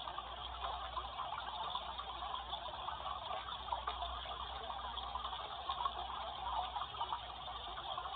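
Steady rushing water of a waterfall, an even continuous roar.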